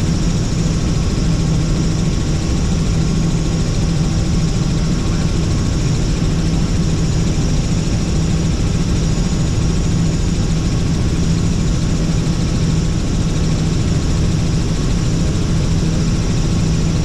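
Helicopter in flight heard from inside the cabin: a steady, unchanging drone of engine and rotor with a strong low hum.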